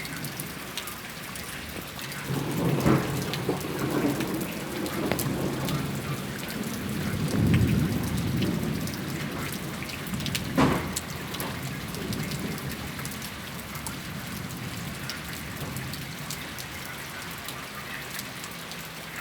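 Heavy rain falling steadily during a thunderstorm. Low rolling thunder swells from about two seconds in to about nine seconds, and there is a single sharp crack a little past the middle.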